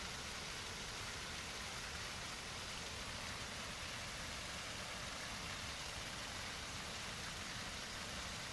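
Steady rush of water from a small waterfall pouring into a pool, an even hiss with no distinct splashes.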